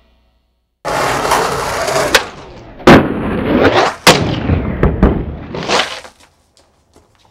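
Skateboard wheels rolling on concrete, cut by several sharp cracks and slaps of the board's tail popping and the deck hitting the ground, the loudest a little under three seconds in; the rolling and clattering stop about six seconds in.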